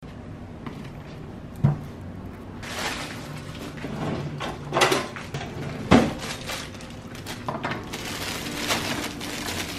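Items being set down and handled on a wooden kitchen counter: a few separate knocks, the loudest about six seconds in, with plastic rustling between them over a low steady hum.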